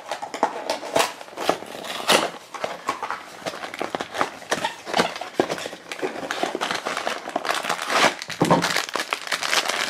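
Cardboard blind box handled and opened by hand, with a run of sharp clicks and crackles, then a shiny foil blind bag crinkling as it is pulled out of the box near the end.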